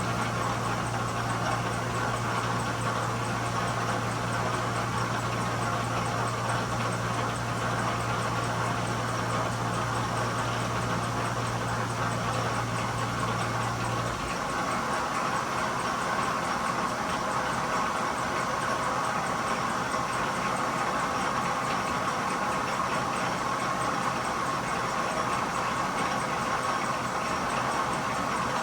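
1943 South Bend lathe running steadily while cutting a deep internal thread. A low hum drops out about halfway through while the machine noise carries on.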